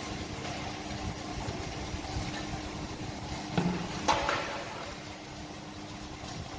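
Block recycling crusher machine running with a steady mechanical hum and a constant tone, crushing broken cement blocks. A sharp knock about four seconds in.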